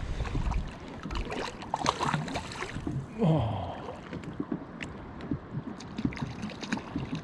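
Small choppy waves lapping and splashing against a kayak hull, with wind rumbling on the microphone at the start and dying away within the first second. A short spoken "oh" about three seconds in.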